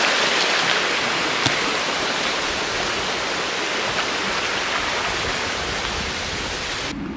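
Steady rush of flowing water, like a fast stream, with one small click a second and a half in. It stops abruptly near the end.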